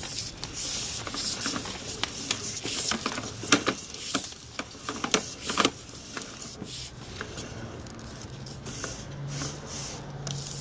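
Irregular scraping and rubbing with scattered sharp clicks, from a sewer inspection camera's push cable being fed by hand into the sewer line.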